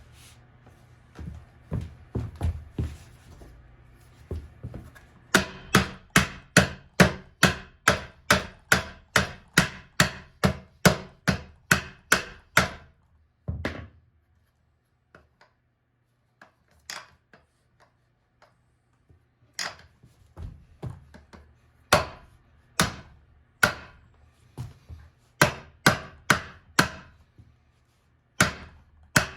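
Tie-clip (lavalier) microphone being thrashed about, giving sharp knocks at about two a second in two long runs, with a few scattered knocks and a quieter gap between them. Lower rustling and rumble come before the first run.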